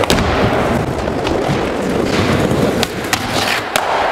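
Skateboard landing with a sharp clack right at the start, then the wheels rolling across a concrete floor with a steady rumble, broken by a few short sharp clicks.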